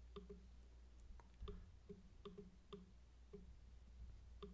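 Faint, irregular computer mouse clicks, about nine in all, over near-silent room tone with a low hum.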